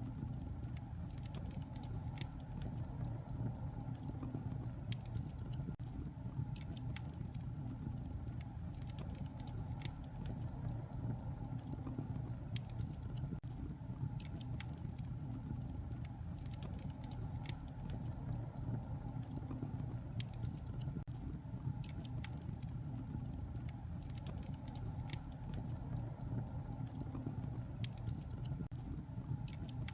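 Wood fire burning in a fireplace: frequent small, irregular crackles and pops over a steady low rush of the flames.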